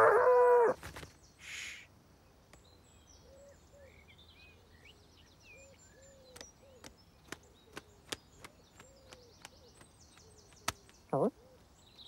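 A cartoon bird's voiced squawk in the first second. Then a quiet garden background of faint distant birdsong with scattered small ticks, and a brief rising vocal noise near the end.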